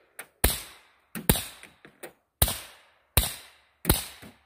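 Suppressed 10mm pistol, a Rock Island Armory 1911 with a SilencerCo Hybrid 46, firing five shots at a steady pace, each a sharp crack that dies away within about half a second. Fainter clicks fall between the shots.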